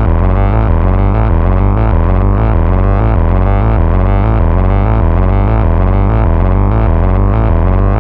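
Behringer Model 15 semi-modular analog monosynth playing a quick, repeating sequenced bass line, one note at a time, the pitch hopping back and forth several times a second through its low-pass filter.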